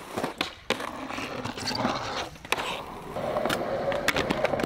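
Skateboard rolling on skatepark concrete, with several sharp clacks of the board. About three seconds in, a steady scraping begins as the board grinds along a ledge.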